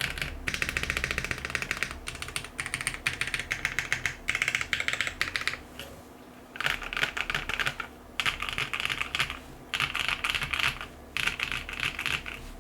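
Custom 60% mechanical keyboard (Tofu60 walnut case, burger mount, polycarbonate plate, pre-lubed Java switches, cherry-profile keycaps, brass sheet in the bottom case) being typed on fast. The typing is a dense, unbroken run for about half the time, then four short bursts with brief pauses between them.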